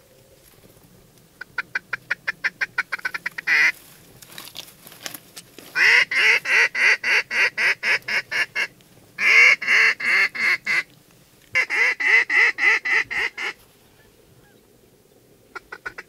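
Duck call blown in quick, evenly spaced quacks: a softer, faster run of chatter, then three loud runs of about five quacks a second, each broken off by a short pause.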